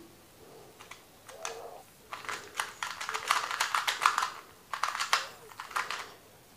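MoYu Meilong 2x2 speedcube being turned quickly by hand: a fast, dense run of plastic clicks and clacks as the layers snap through their turns.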